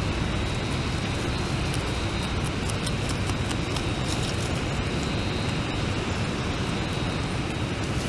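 Beaver gnawing and chewing tree sapling leaves and stems close to the microphone: irregular crisp crunching clicks over a steady low background rumble.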